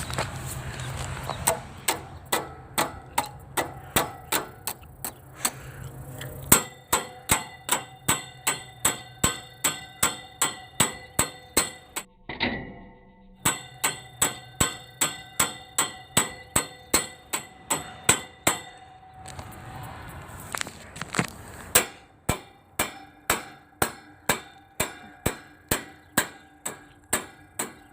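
A hammer striking the metal casing of a Haier window air conditioner over and over, about two blows a second, each one ringing briefly. The blows stop twice, for a second or two near the middle and for about three seconds later on.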